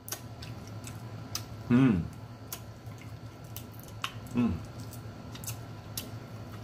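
Crab shell being picked apart by hand, with scattered small clicks and snaps. Two short vocal sounds falling in pitch break in, the louder one about two seconds in and another a little after four seconds.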